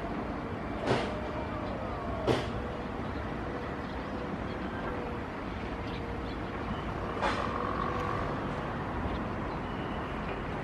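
Steady low background rumble, with three sharp clicks about one, two and a half and seven seconds in, and a faint steady hum through the middle.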